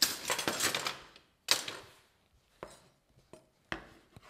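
Large kitchen knife cutting through smoked tempeh on a wooden cutting board: a scraping crunch of cuts over the first second, a sharp knock of the blade on the board about a second and a half in, then a few light taps and another knock near the end.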